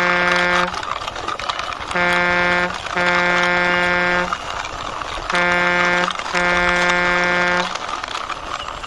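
Truck horn honking in a repeating short-then-long pattern, a brief beep followed by a longer held note, twice, with the tail of another long note at the start.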